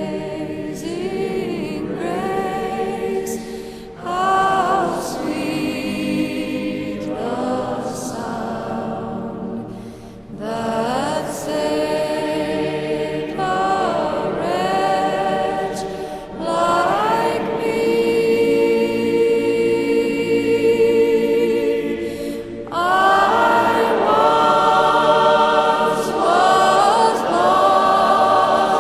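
Choir singing slowly in long held phrases, the notes wavering with vibrato.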